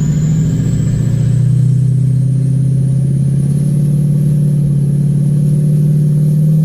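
Diesel pickup truck engine running steadily under load while driving through snow, a loud low drone with a thin high whistle that slowly rises in pitch.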